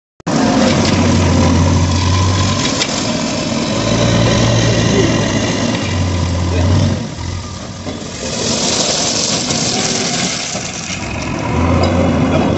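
JCB 3DX Super backhoe loader's diesel engine running hard, its low note swelling in several spells as the front bucket works, with a rasping hiss of crushed stone being scooped and shifted that is loudest past the middle.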